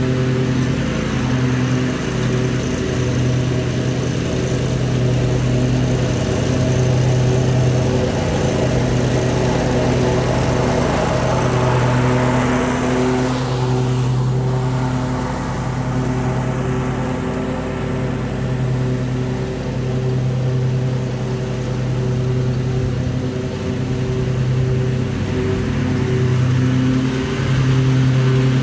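Lawn mower engine running steadily under load while cutting grass, its hum swelling and easing slightly as the mower moves.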